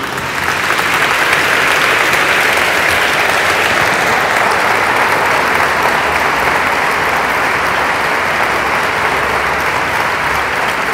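Audience applauding, swelling over the first second and then holding steady and loud.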